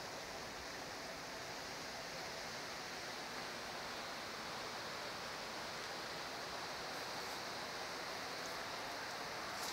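Steady rushing of river water, an even, unbroken hiss.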